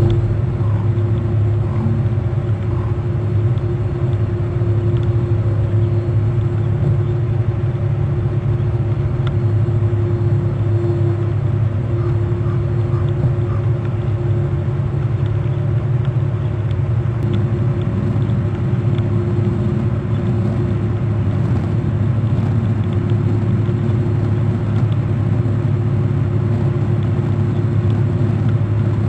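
A steady low mechanical hum with one constant higher tone, unchanging throughout.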